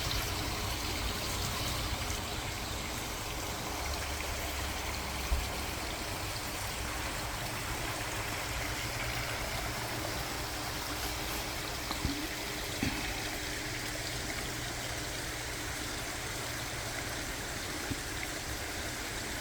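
Steady rushing of running water, like a forest stream, with a few soft knocks about five seconds in and again around twelve seconds in.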